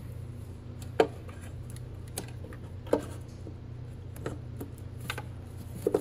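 Metal valve-cover bolts being set into their holes by hand: about six short, sharp metallic clicks and taps, irregularly spaced, over a steady low hum.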